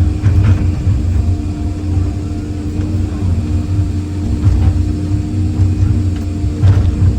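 Excavator's diesel engine running steadily, with a few light clanks and scrapes of the bucket working concrete pipes, the clearest one near the end.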